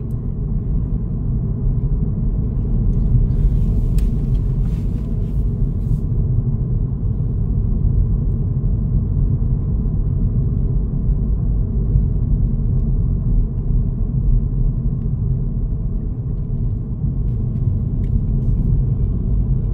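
Steady low road and engine rumble inside the cabin of a car driving along, with a brief higher hiss about three seconds in.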